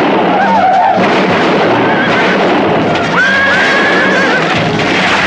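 Horses charging through a shallow river with heavy splashing, high wavering cries over them and one long high call about three seconds in, all under a film music score.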